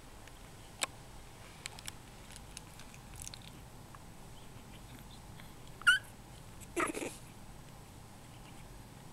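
Two-week-old puppies squeaking in their sleep: one sharp, high squeak about six seconds in, then a short rougher whimper just after. A few faint clicks come earlier.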